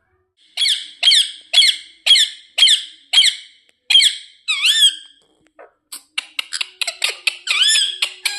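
Indian ringneck parrot calling: a run of about eight short, sharp high-pitched screeches at about two a second, then a longer call. A quick series of short chips follows, then a louder squawk near the end.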